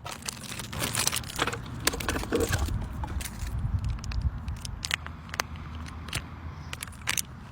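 Packaging being handled and opened, crinkling and crackling with many sharp small clicks.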